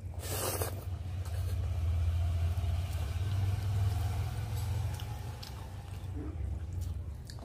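A low, steady rumble swells about a second in, holds, and fades after about five seconds, with a short noisy burst right at the start.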